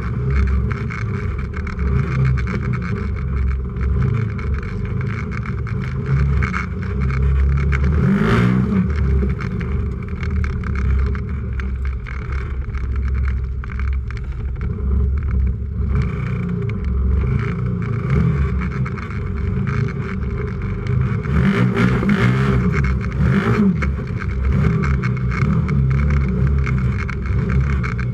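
Racing UTV's engine running hard, revs rising and falling through the gears and turns, with rattles and knocks from the chassis over rough trail, heard from inside the cab.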